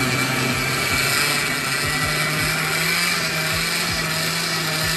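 Oster countertop blender running steadily as it mixes a thick carrot cake batter of carrot, oil, milk, eggs and sugar. Its motor hum rises a little in pitch over the first couple of seconds, then holds steady.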